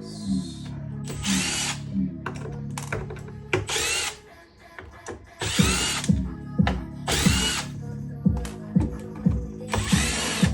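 Cordless power drill running in about six short bursts, each spinning up with a rising whine. Background music with a steady beat of low drum thumps plays throughout.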